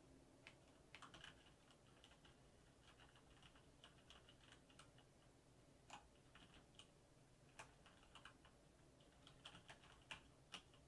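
Faint typing on a computer keyboard: irregular keystrokes in short runs with gaps between them.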